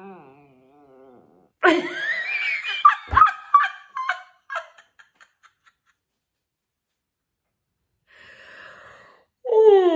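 A person laughing: a loud burst of laughter that breaks into shorter and shorter giggles and fades out. After a pause and a breath, a long drawn-out vocal sound falling in pitch starts near the end.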